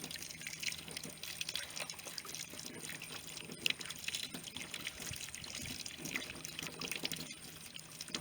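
Water running, trickling and splashing as freshly dug sweet potatoes are rinsed clean.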